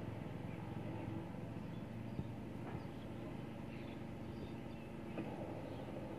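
Kubota diesel tractor engine running steadily under load as it pulls a rotary tiller through a flooded rice paddy.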